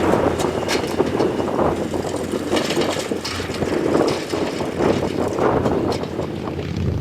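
Hay-field machinery at work: a steady engine drone with irregular swells of mechanical clatter and scattered clicks.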